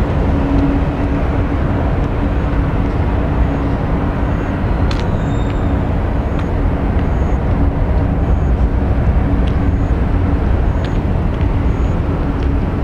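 Steady, loud low roar from a distant Airbus A320-200 on final approach and touchdown, heavily mixed with wind rumble on the microphone. A faint steady hum runs underneath, and faint short high chirps repeat through the middle.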